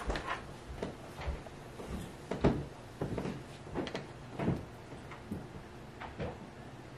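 A metal fork cutting into cake and knocking and scraping against a round metal cake pan as the pan is handled on the table: a string of irregular knocks and scrapes, the loudest about two and a half seconds in.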